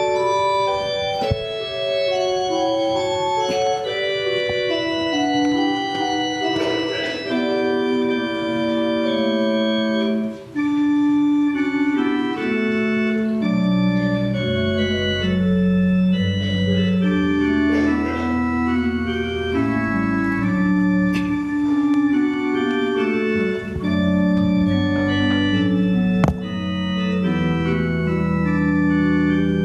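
Church organ playing slow offertory music in sustained, stepping chords, with deep bass notes joining about halfway through.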